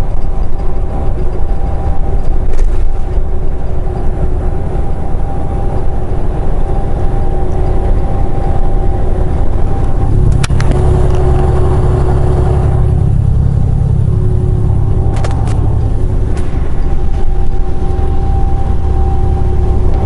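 Semi truck's diesel engine and road noise heard from inside the cab at highway speed: a steady low rumble with a faint constant hum. The low engine note grows louder for a few seconds about halfway through, and there are a few brief clicks or rattles.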